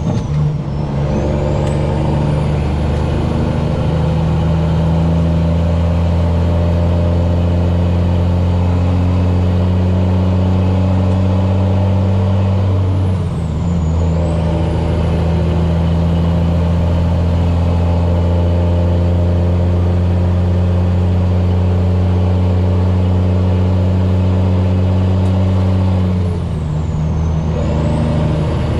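Cummins ISX diesel engine of a heavily loaded semi cattle truck pulling hard under acceleration, with a high turbo whistle above it. The engine note and whistle drop away briefly three times, at the start, about 13 seconds in and near the end, as the driver upshifts the 18-speed transmission.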